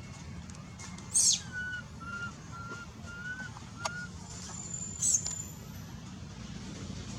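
Bird calls: two short, shrill, very high-pitched calls about a second in and near five seconds, with a run of five short whistled notes between them, over a steady low rumble.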